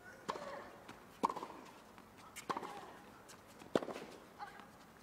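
Tennis rackets striking the ball back and forth in a doubles rally, a sharp hit about every second and a quarter, each echoing briefly.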